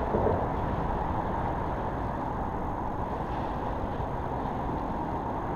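Steady low rumble of road traffic on the highway bridge overhead.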